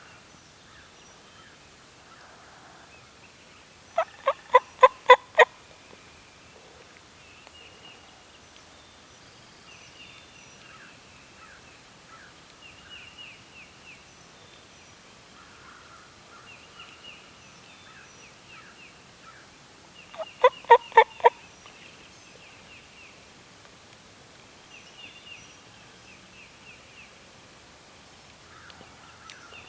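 A wild turkey gobbler gobbling twice, about four seconds in and again about twenty seconds in. Each gobble is a rapid rattling string of notes lasting about a second. Faint high bird chirps sound in between.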